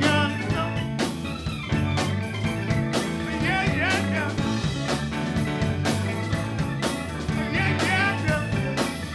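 Live R&B band playing a groove: drum kit keeping a steady beat under bass and keyboards, with short wavering sung phrases coming in now and then.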